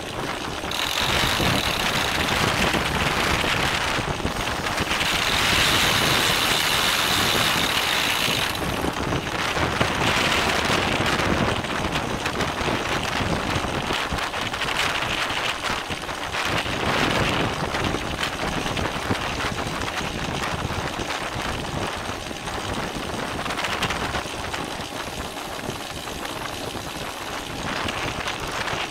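Wind rushing over the microphone of a camera mounted on a racing bicycle, mixed with tyre and road noise, growing louder in surges a few seconds long.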